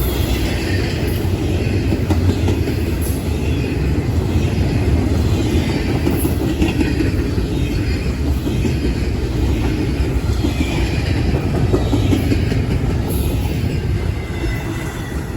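Cars of a CSX double-stack intermodal freight train rolling past: a steady, loud rumble of steel wheels on rail with clickety-clack from the rail joints.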